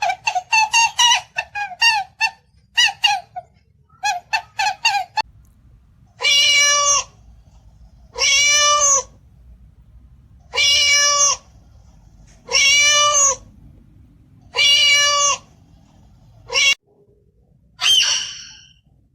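A chicken clucking in a fast run of short calls for about five seconds, then a domestic cat meowing: five drawn-out meows, each under a second long, about two seconds apart, followed by a shorter, falling call near the end.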